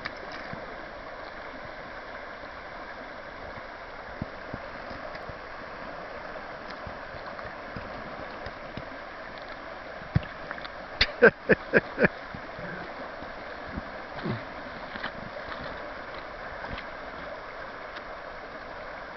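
Steady rush of a shallow river running over a riffle. A little past halfway, a quick run of about five sharp knocks stands out above it.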